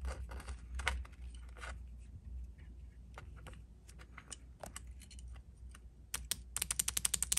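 Three-port boost control solenoid clicking as its two leads are touched to a 12-volt battery's terminals, the valve switching each time it is powered: scattered single clicks, then a fast run of clicks about a second before the end.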